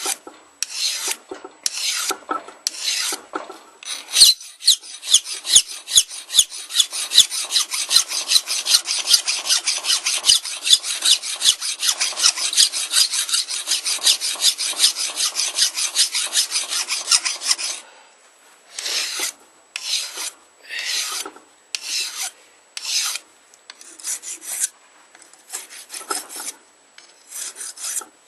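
A hand file rasping back and forth across a metal knife blade clamped in a vise, smoothing off earlier file marks before any sharpening. A few separate strokes, then a fast run of several short strokes a second for most of the time, then slower single strokes about once a second near the end.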